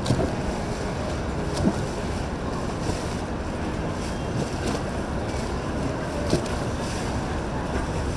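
Boat engines running on the water in a steady rumble with wind on the microphone. A few sharp knocks stand out, the loudest right at the start and about a second and a half later.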